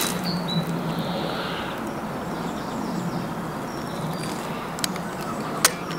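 A mastic gun squeezing out Tiger Seal sealant, with two sharp clicks of the gun near the end. Birds chirp faintly over a steady low hum.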